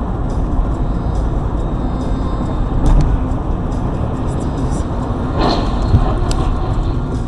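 Steady road and engine noise heard inside a moving car on a highway, with a knock about three seconds in. Around five and a half seconds in comes a short crash sound, followed by a sharp bang, as a car ahead strikes the guardrail.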